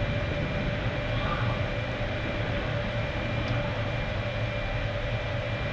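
Submersible's motors running underwater: a steady low rumble with a faint steady whine above it.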